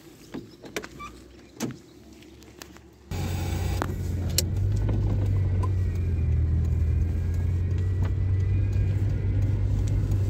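A few light clicks and knocks around a car door. Then, about three seconds in, a car's engine and road noise come in suddenly and run on as a steady low hum, heard from inside the cabin as the car drives off.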